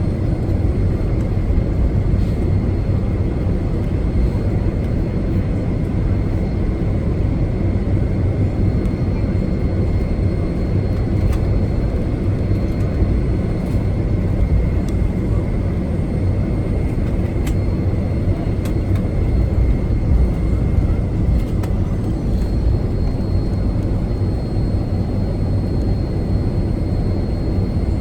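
Boeing 757-200 jet engines heard inside the passenger cabin: a steady, loud low rumble with a faint high whine over it.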